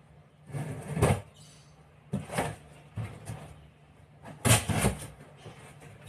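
Cardboard shipping box handled on a desk: short scraping and bumping noises in four separate bursts, the loudest about four and a half seconds in, over a steady low hum.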